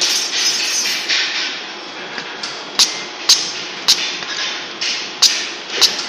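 YH-9800 coaxial cable stripping machine running, a steady mechanical noise with recurring hissy bursts, then five sharp metallic clacks in the second half as its mechanism cycles.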